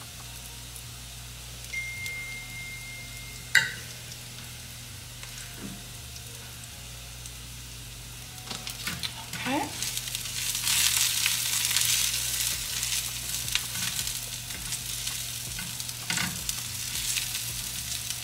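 Chopped onions frying with a faint sizzle in a flat pan over a gas burner, the onions caramelizing. A single sharp click comes about four seconds in. From about ten seconds in a silicone spatula stirs and scrapes them across the pan, and the sizzling grows louder.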